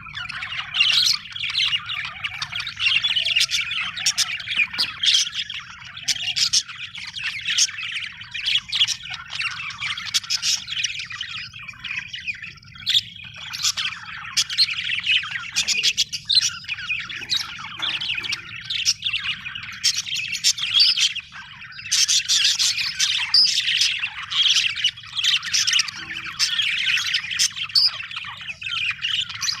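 Budgerigars chirping and chattering without pause, many calls overlapping, with a faint low hum underneath.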